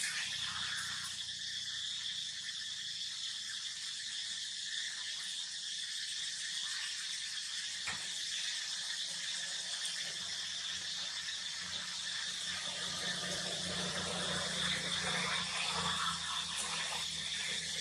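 Steady high-pitched insect chorus, with a low hum rising in the second half.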